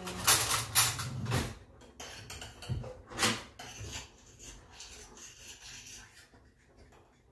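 Clatter of a cooking pot and utensils being handled: a handful of sharp knocks and clinks in the first three and a half seconds, then quieter scraping and rustling that fades.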